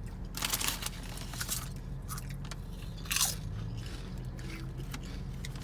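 A honey jalapeño Rap Snacks potato chip being bitten and chewed: a run of loud crisp crunches in the first second and a half, then quieter chewing, with one more crunch about three seconds in.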